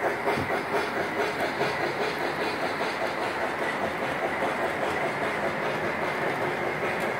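American Flyer S-gauge Polar Express model steam train running on the track: the rolling of the wheels, with a quick, regular chuffing rhythm from the locomotive's sound system, about four beats a second.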